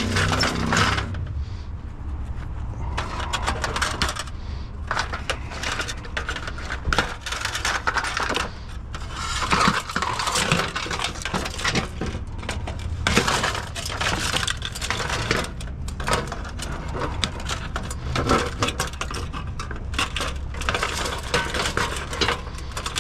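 Small metal parts clinking and rattling in quick, irregular clicks as a salvaged light fixture with tangled pull chains is handled.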